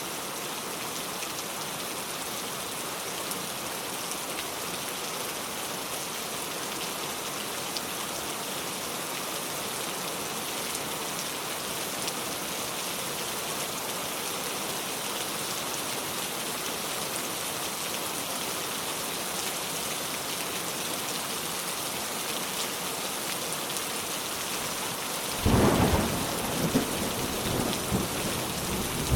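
Steady rain falling. Thunder cracks suddenly and loudly about four seconds before the end, then rumbles on in rolling peaks.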